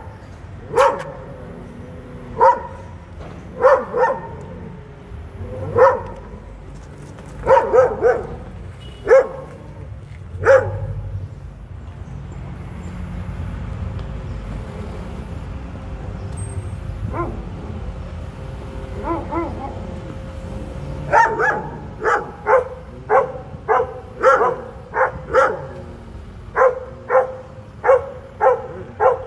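Large white shaggy dog barking repeatedly at something by a parked car, in single sharp barks. The barks pause for about ten seconds in the middle, leaving only a low rumble, then come quicker and more regularly near the end.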